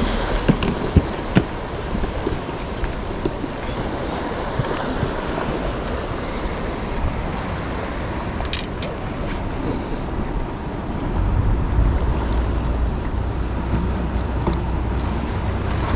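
Wind blowing on the microphone and sea washing against a concrete breakwater: a steady rush, with a deeper rumble coming in about eleven seconds in and a few light clicks.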